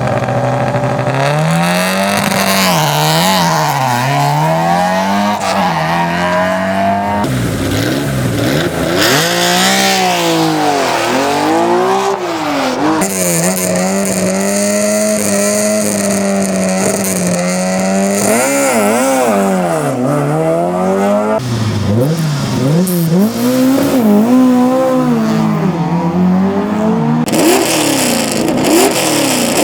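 Rally car engines revved up and down at the start line and then launched hard, one car after another in short cuts, with some tyre squeal from wheelspin.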